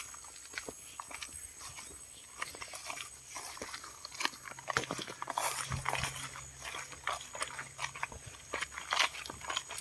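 Farm animals, with many irregular crunching and clicking noises, busiest in the second half.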